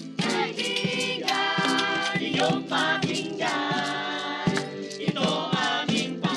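A group of young voices singing a simple Tagalog song in unison, with a strummed guitar accompaniment keeping a steady beat.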